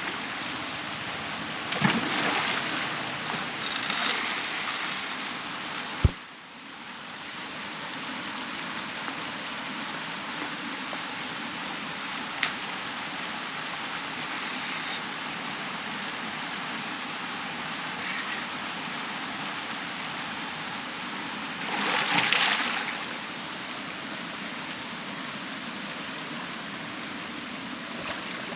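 Steady rushing water, with a few louder splashes and one sharp knock about six seconds in.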